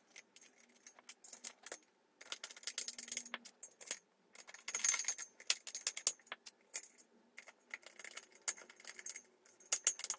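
Steel bolts and washers clicking and clinking against a steel table-leg mounting plate as they are set in place by hand. Sharp irregular clicks throughout, with a short scraping rasp about five seconds in.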